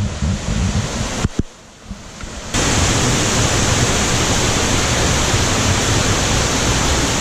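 Small waterfall cascading down stepped rock into a pool, a steady rush of water. It drops away for about a second shortly after the start, then comes back louder and holds steady.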